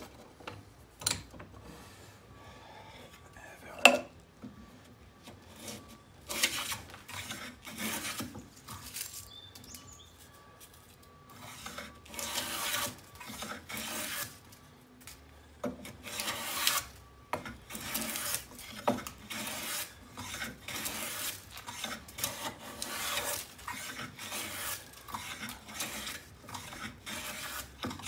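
Lie-Nielsen No. 62 low angle jack plane taking repeated strokes along the face of a 2x4. It makes a short swish with each cut, about one a second, after two sharp knocks in the first few seconds.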